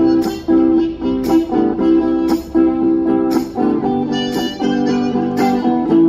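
Archtop guitar strummed in a steady rhythm, with a strong stroke about once a second, and a harmonica playing over it in an instrumental break of a country song.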